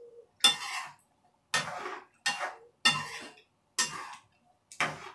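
A spoon scraping and clinking against a frying pan as chicken curry is stirred, about six separate strokes roughly a second apart.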